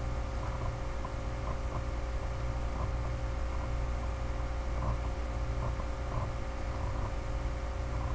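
Steady low electrical hum and hiss from the recording setup, with a faint steady tone over it and a few faint light ticks now and then.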